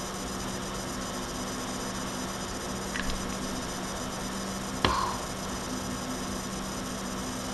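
Steady hiss and low electrical hum from a built-in webcam microphone, with a faint click about three seconds in and a sharper knock about five seconds in.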